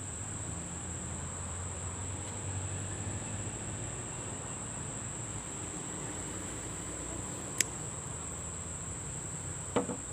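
Steady high-pitched insect drone, with a sharp click about seven and a half seconds in and another just before the end.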